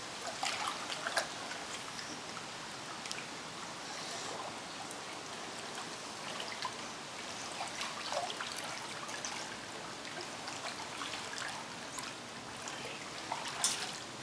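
Swimming-pool water splashing and lapping as a child paddles through it, a steady trickling wash with many small splashes and a sharper splash near the end.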